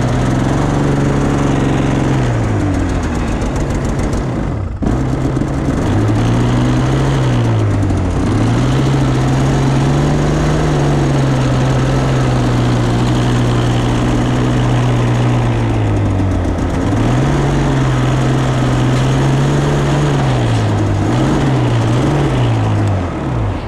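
A vehicle engine running under load, its pitch climbing and dropping back several times as it speeds up and shifts, with a brief break about five seconds in.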